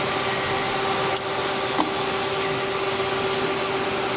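Steady machine hum, as of a running motor or hydraulic unit in the workshop, with a sharp click about a second in, after which it is slightly quieter, and a light tick a moment later.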